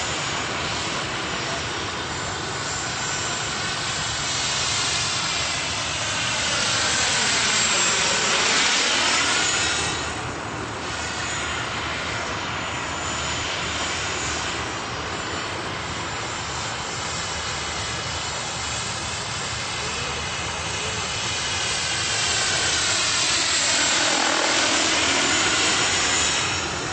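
Jet-turbine-powered radio-controlled scale Lama helicopter (Vario) in flight: a steady turbine whine mixed with rotor noise. Its tone swoops down and back up as it passes, once about eight seconds in and again near the end, and it is loudest at those passes.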